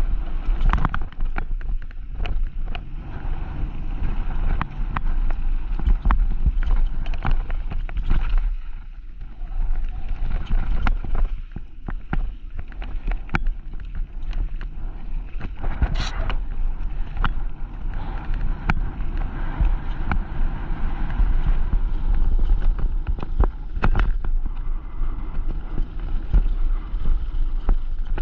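Mountain bike descending a bike-park trail: wind buffeting the on-board camera microphone with a heavy rumble, tyres running over gravel, and the bike clattering in sharp knocks over bumps.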